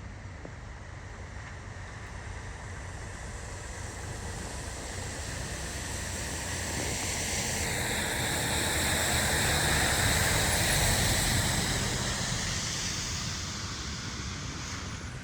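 A vehicle passing on a wet road, its tyre hiss swelling to a peak about ten seconds in and then fading away.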